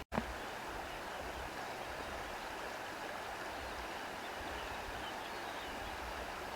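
Wind blowing through grass: a steady rushing hiss with irregular low rumbles from the gusts. The sound cuts out for an instant just after the start.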